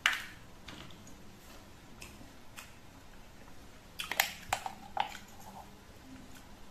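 Plastic screw cap being twisted off a juice bottle: a quick run of sharp clicks and cracks about four seconds in as the cap's seal ring breaks. One sharp knock comes at the very start.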